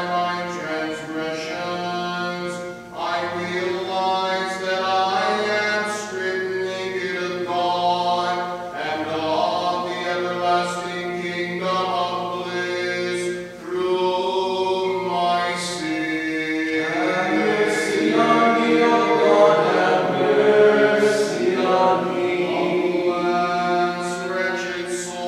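A small group of men's voices singing Orthodox liturgical chant a cappella, the melody moving over a low note that is held almost throughout, with brief breaths about three seconds and thirteen seconds in.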